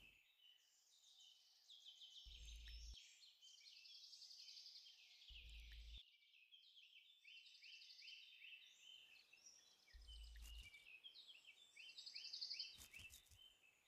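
Faint woodland birdsong: many small birds chirping in quick, short downward-sliding notes, with a few brief low rumbles.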